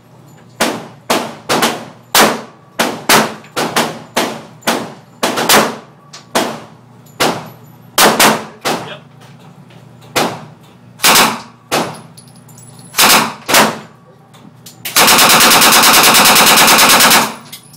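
Gunfire in an echoing indoor range: about two dozen separate shots at an uneven pace, often less than half a second apart, then, about three seconds before the end, one continuous burst of fully automatic fire lasting about two seconds.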